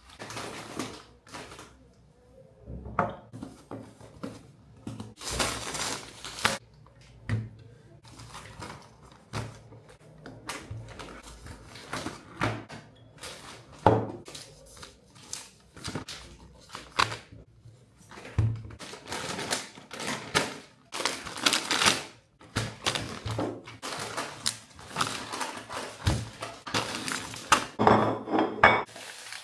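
Groceries being unpacked onto a stone kitchen countertop: repeated knocks of a glass bottle and packets being set down, between stretches of rustling packaging. Near the end, two ceramic plates are set down on the counter with a clatter.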